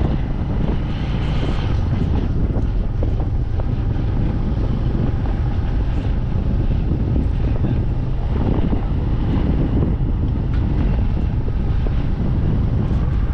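Wind rushing on the microphone of a moving motorcycle, a steady heavy rumble with the engine running beneath it.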